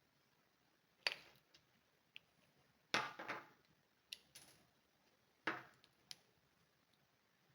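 Small tools and parts handled during a hand repair of plastic eyeglass frames: a handful of sharp clicks and short scraping knocks at uneven intervals.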